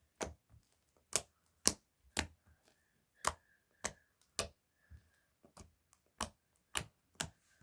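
Fluffy shaving-cream slime being squeezed and poked by hand, giving sharp pops and clicks about twice a second at uneven intervals.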